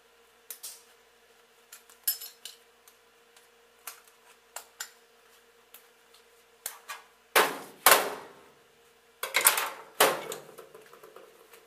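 Gloved hands handling the metal mold and clamp of a benchtop injection molding machine: scattered light metal clicks, then two bursts of loud clattering knocks in the second half.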